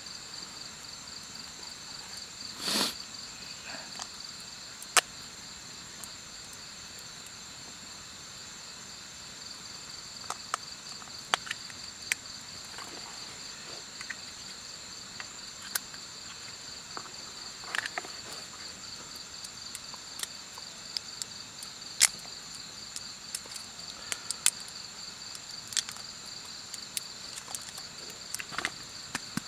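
Crickets chirping in a steady, fast high trill, with scattered sharp clicks and a brief rustle about three seconds in.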